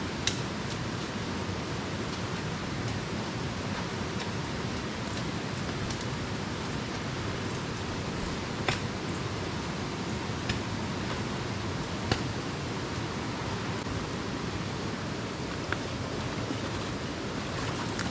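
Steady rush of flowing water, as from a stream or river, with a few scattered sharp clicks or knocks.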